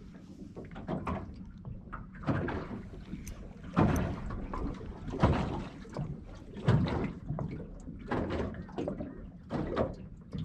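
Small ripples slapping against the hull of a small aluminium boat (a tinny): irregular hollow knocks and splashes, roughly one a second, the loudest about four, five and seven seconds in.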